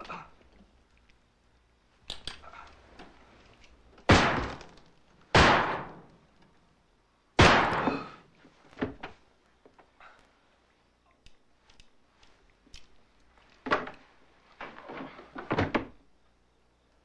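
Three loud handgun shots in a room, each a sharp crack with a short ringing tail: about four seconds in, a second and a half later, and two seconds after that. Fainter knocks and clatter follow near the end.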